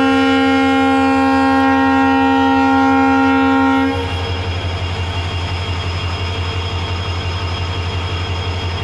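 WDP4D diesel locomotive's multi-tone air horn sounding one long steady chord for about four seconds and cutting off sharply, the signal before the train departs. After it, the locomotive's EMD 16-cylinder two-stroke diesel engine runs on with a steady low throb.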